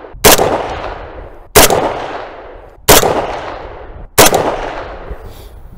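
AK-pattern rifle in 7.62x39 firing four aimed single shots, about 1.3 seconds apart, each followed by a long echoing decay: part of a five-shot group fired after the dust cover was removed and refitted, to check whether the point of impact shifts.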